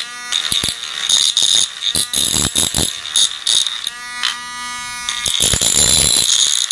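Clip fan's small electric motor running, its shaft freshly cleaned and oiled: a steady buzzing hum with irregular clicking and rattling through the middle. It runs without vibrating, a sign that the cleaning and oiling freed the shaft.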